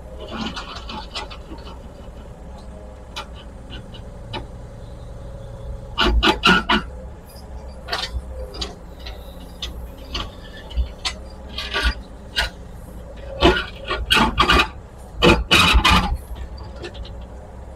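Small excavator's engine running steadily while its bucket works against a concrete porch pad, with sharp knocks and scrapes of steel on concrete: a cluster about six seconds in, then repeated bangs from about thirteen to sixteen seconds.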